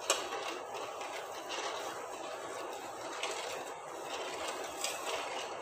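A spoon stirring sugar into water in a stainless steel pan, scraping the pan's bottom, with a few light clicks over a steady hiss.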